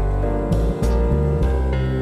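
Instrumental background music, its notes changing every fraction of a second.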